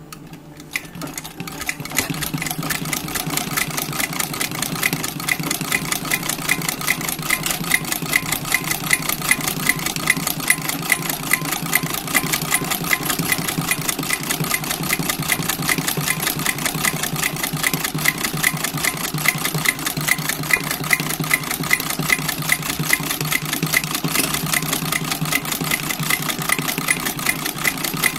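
Vintage sewing machine stitching a buttonhole with a rotary buttonhole attachment, its needle bar working the attachment's lever: a fast, even clatter of needle strokes. It starts about half a second in and builds up over the first two seconds, then runs steadily.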